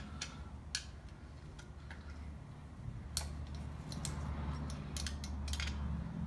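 Scattered metal clicks and ticks from hands and an Allen wrench working the seat-mast collar clamps of a folding tandem bicycle frame, over a low steady hum.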